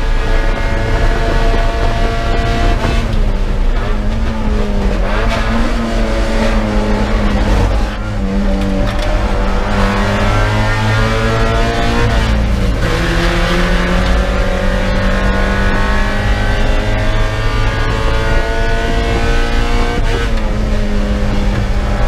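A Spec Miata's four-cylinder engine, heard from inside the car at race pace. It runs loud while braking from high speed into a slow corner, with the pitch falling over the first half. Past the slowest point the pitch climbs again under acceleration and drops sharply twice, about halfway and again near the end, as it shifts up.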